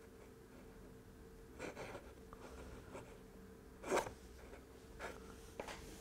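Quiet handling noises of small MDF pieces being picked up and moved on a cutting mat, a few soft scrapes and taps with one sharper tap about four seconds in, over a faint steady hum.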